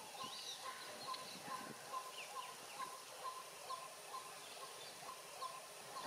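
Faint outdoor birdsong: one bird repeating a single short note evenly, about twice a second, with other birds chirping higher over a steady high hiss.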